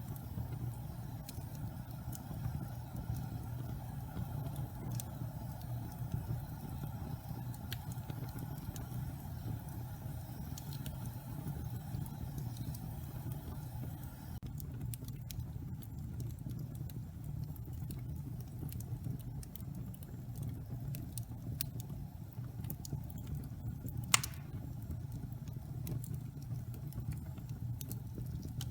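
Wood fire burning in a fireplace: a steady low rumble of the flames with scattered crackles of the logs, and one loud sharp pop about 24 seconds in.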